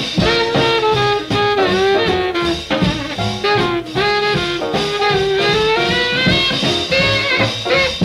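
Alto saxophone leading a small jazz combo of piano, bass and drums in an uptempo jump-jazz instrumental, its melody sliding and bending between notes over a steady beat, played from a 1947 78 rpm record.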